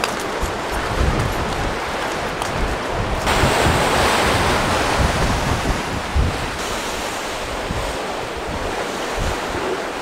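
Ocean surf surging and breaking against a rock shelf, a steady wash that grows fuller from about three seconds in, with wind rumbling on the microphone.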